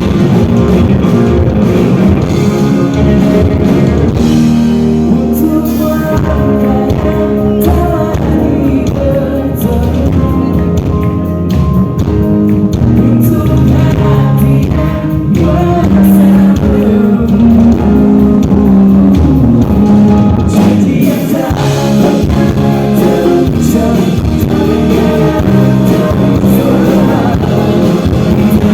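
Live band music: a pop-rock song with singing over guitar, bass and drum kit, played loud and without a break.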